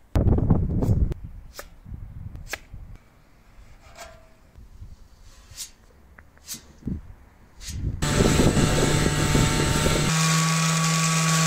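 Hand sanding of body filler on a steel motorcycle fuel tank: scratchy rubbing strokes, loudest at the start, with a few light clicks. About eight seconds in, an electric orbital sheet sander starts abruptly on the tank and runs steadily with a loud buzzing hum, its pitch shifting slightly a couple of seconds later.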